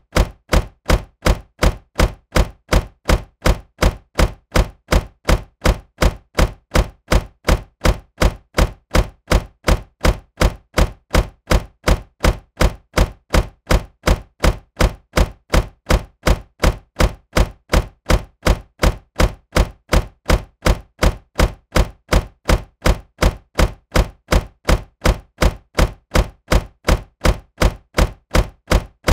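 A car door shutting with a solid thunk, the same short thud repeated evenly nearly three times a second as a loop.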